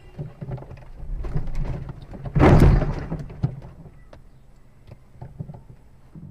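A car-to-car collision heard from inside the dashcam car: one loud crash about two and a half seconds in, lasting about half a second, as a dark SUV strikes the front left of the car. A few small knocks follow over a low engine and road rumble.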